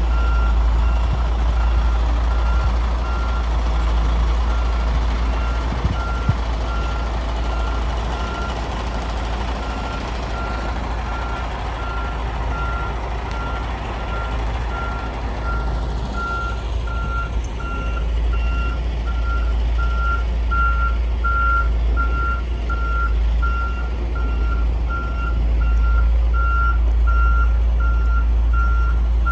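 Semi truck's back-up alarm beeping at an even pace while the rig reverses, over a loud, steady low rumble from the truck.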